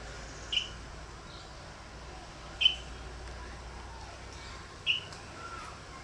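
A bird giving three short, sharp chirps, about two seconds apart.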